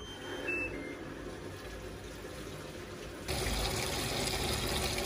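Top-loading washing machine filling: water running into the drum, louder from about three seconds in as it pours onto the laundry. Near the start, a short falling three-note electronic beep.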